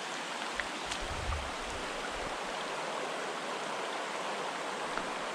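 Shallow creek water running over stones in a riffle: a steady rush, with a few faint clicks in the first second and a half.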